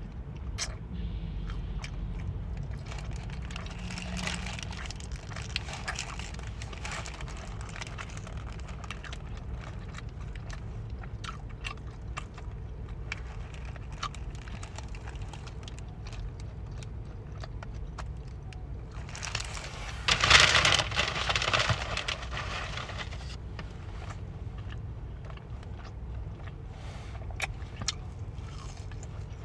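Soft handling noises with scattered small clicks and crinkles, most likely a fast-food sandwich and its paper wrapper being handled, with one louder rustle lasting a few seconds about twenty seconds in, over a steady low hum.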